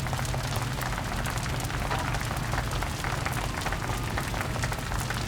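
Crowd applauding, dense overlapping hand claps over a low steady hum.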